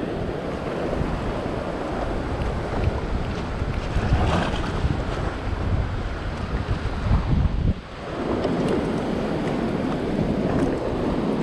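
Ocean surf breaking and washing over a low rock shelf, with wind buffeting the microphone; the wind rumble drops out for a moment about two-thirds of the way through.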